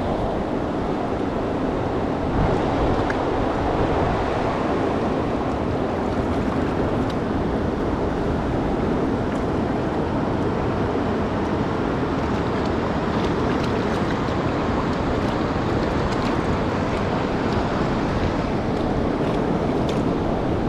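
Steady rush of the Truckee River's flowing water.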